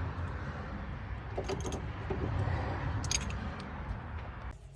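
A few light metallic clinks of hand tools and a spark plug being worked in an engine bay, over a steady low rumble that drops away suddenly near the end.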